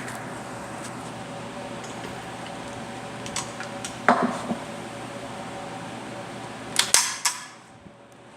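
Gunfire at an indoor shooting range over a steady ventilation hum: one sharp report with a short ringing tail about four seconds in, then two or three quick cracks close together near seven seconds.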